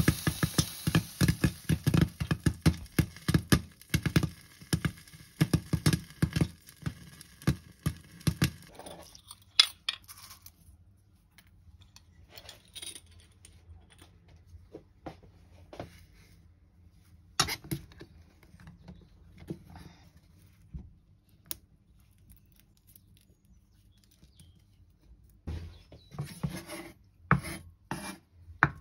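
Popcorn kernels popping fast in a lidded stainless steel pot, a dense run of sharp pops over a hiss that thins out and stops about nine seconds in. After a quiet stretch with a few scattered taps, a kitchen knife knocks on a wooden cutting board several times near the end as a cardamom pod is crushed under the blade.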